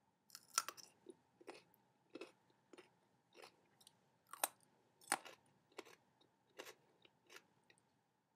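A raw carrot stick being bitten and chewed close to the microphone: short crisp crunches, about a dozen of them, roughly one every two-thirds of a second.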